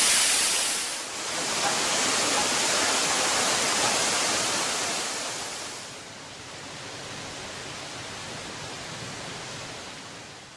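Waterfall rushing: a steady, dense noise of falling water. It dips briefly about a second in, settles to a lower level about six seconds in, and starts to fade near the end.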